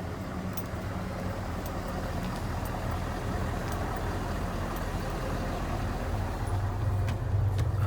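A bus engine running close by with a steady low hum, getting louder near the end.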